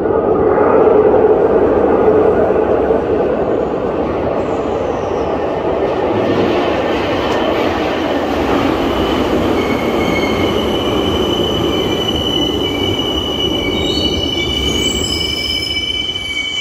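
Glasgow Subway train rumbling in out of the tunnel and pulling into the station. From about two-thirds of the way through it gives a steady high squeal, with more squealing tones joining near the end as it slows to a stop.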